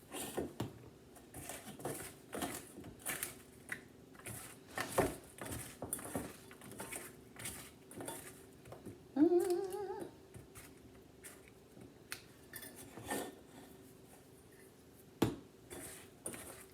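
Kitchen clatter while potato slices are seasoned in a bowl: scattered light clinks and taps of dishes, utensils and spice containers. A short hummed voice sound comes about nine seconds in.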